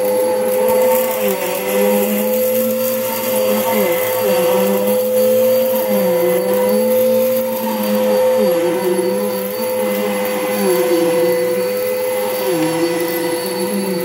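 Bissell PowerForce Helix upright vacuum cleaner running on carpet: a steady motor hum, with lower tones that dip and rise every second or two as it is pushed back and forth.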